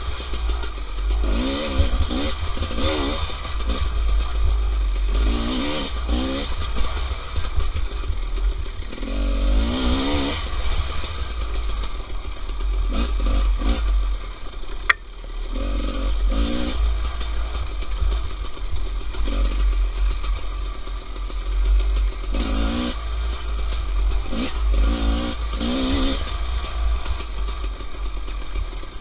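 Off-road motorcycle engine revving up and falling back again and again as the throttle is worked through the trail's turns. Under it are a constant low rumble of wind on the camera microphone and chassis rattle, with one sharp click about halfway.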